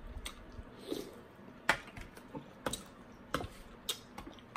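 A person chewing a mouthful of Lao noodle soup, with a string of short sharp clicks and smacks about every half second to second.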